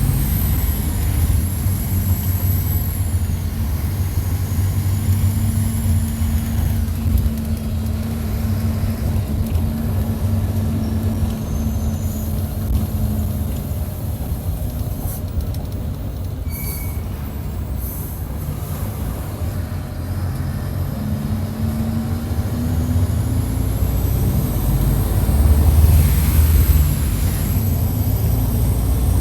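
Mercedes-Benz OF-1722 bus diesel engine heard close up from inside the bus. The engine note and a high whine drop away early on, the engine holds steady and eases off in the middle, then revs climb again near the end with the whine rising.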